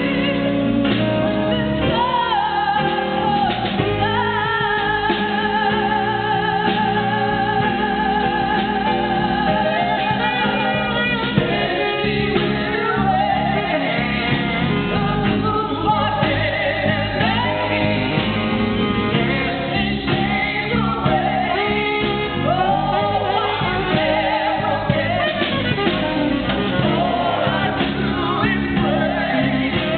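A live band accompanies a woman singing a blues number. About four seconds in she holds a long note with vibrato for several seconds.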